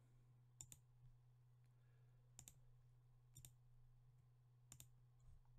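Faint computer mouse clicks: four quick double ticks spread unevenly over a few seconds, over a low steady electrical hum.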